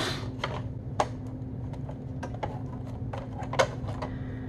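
Scattered plastic clicks and knocks from an LCD monitor's back housing as its clip latches are pressed in and the panel is worked loose, the sharpest about a second in and again near the end, over a steady low hum.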